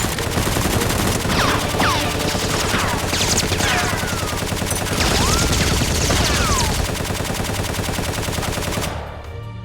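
Continuous rapid automatic gunfire sound effects with several falling, whistling tones in among them, over a steady low rumble. The firing drops away abruptly near the end.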